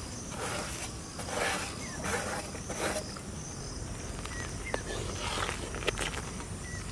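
Spiced water boiling in a large iron wok over a wood fire, with a few short swishes as a spatula stirs it. Small birds chirp now and then.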